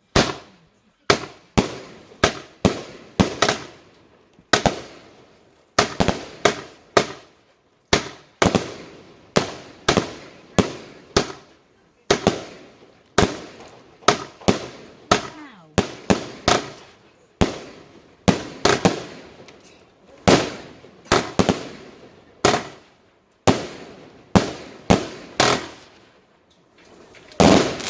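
Fireworks going off in a long, rapid run of loud bangs, about one to two a second, each fading quickly, with a brief lull near the end.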